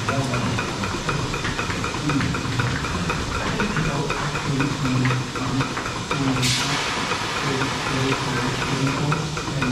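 Milking parlour equipment running: a steady hiss of the vacuum system, with rapid clicking of pulsators and a low uneven hum underneath. About six and a half seconds in, a sudden burst of hissing air fades over about a second.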